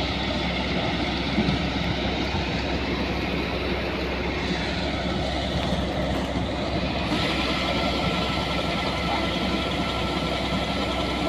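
An engine-driven machine running steadily with a dense, continuous noise; the higher part of the sound gets louder about seven seconds in.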